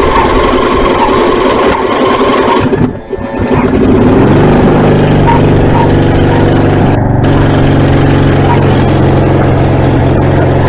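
Tractor engine being started off a portable jump-starter pack because its battery is flat: it turns over unevenly, dips briefly about three seconds in, then catches and runs at a steady idle.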